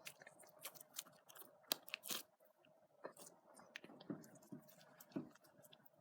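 Clear slime being squished and poked by hand, giving faint, irregular sticky clicks and pops with a few soft squelches.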